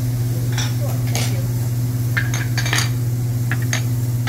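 Metal utensils clinking and tapping on a steel teppanyaki griddle: a scattering of short, sharp clinks over a steady low hum.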